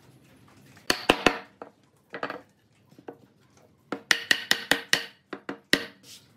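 Wooden parts knocking and tapping together on a workbench as glued mortise-and-tenon pieces are fitted: three sharp knocks about a second in, a few lighter taps, then a quick run of about six knocks near the end.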